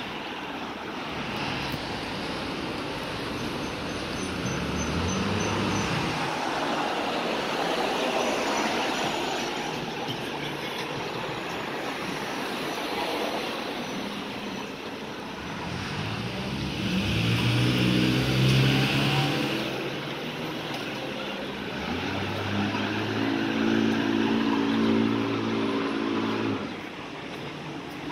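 Street traffic: cars driving past on the road beside the footpath, with a steady wash of tyre and engine noise. The engine hum of a passing vehicle grows louder about two-thirds of the way in, and another engine hums steadily near the end before cutting off.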